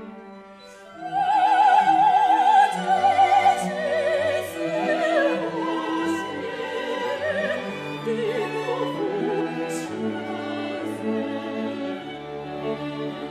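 Classical soprano singing with wide vibrato, accompanied by a string quartet of two violins, viola and cello. The voice comes in about a second in, sings high and then falls in pitch, and drops out after about nine seconds, leaving the bowed strings with low cello notes near the end.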